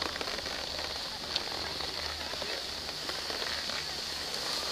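Skis sliding over packed, groomed snow: a steady hiss with small crackles, over a low steady rumble.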